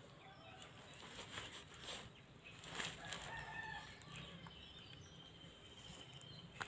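Faint chickens clucking in the background, with a few soft taps.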